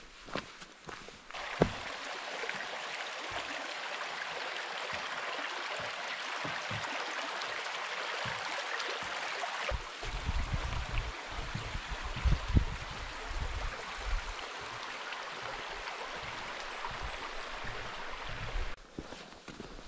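Mountain stream rushing steadily over stones, the sound cutting in suddenly about a second in. From about halfway, low thuds of a hiker's footsteps come through under it.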